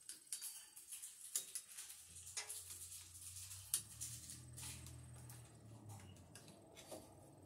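Screwdriver working a screw on the metal Romex cable connector of a bathroom exhaust fan's sheet-metal housing: faint scattered clicks and scrapes, the sharpest a little under four seconds in. A low hum comes in about two seconds in.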